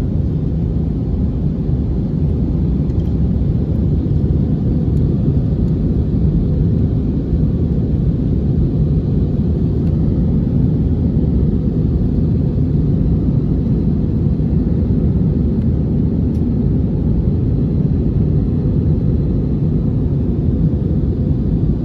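Steady cabin noise of a jet airliner in its climb, heard from a window seat: engine and airflow noise making an even, low sound with no change.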